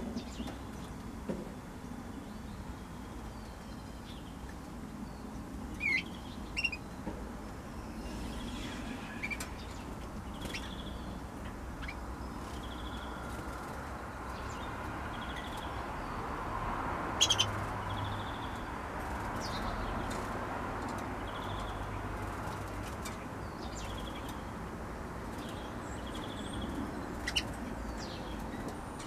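Young female canaries in a cage giving short, high chirping calls every second or two, with occasional wing flutters and a few sharp clicks, the loudest about halfway through.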